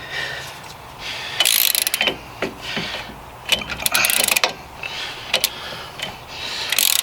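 Socket ratchet clicking in short bursts as it is swung back and forth on a rear hub assembly bolt, with single sharp clicks between strokes; the bolt is being worked loose.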